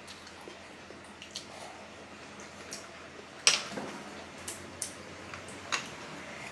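Close-up mukbang eating noises: scattered wet mouth smacks and small clicks while eating spicy noodles, the loudest about three and a half seconds in.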